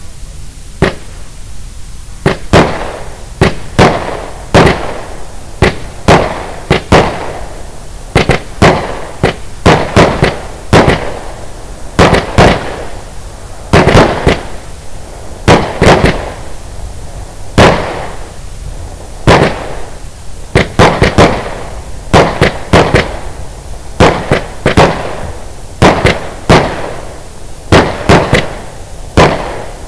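Lesli 'Wütender Weihnachtsmann' 36-shot consumer firework battery firing its shots in quick succession: a loud bang about once or twice a second, with a continuous crackle between the bangs.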